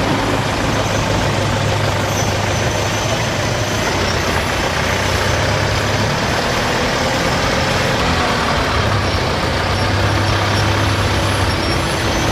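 Steady construction-site machinery noise with a constant low hum, drowning out a car driving around nearby, which is only faintly heard.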